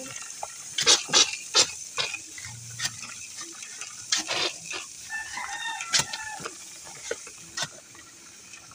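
A rooster crows once, about midway. Around it are a series of sharp, irregular knocks.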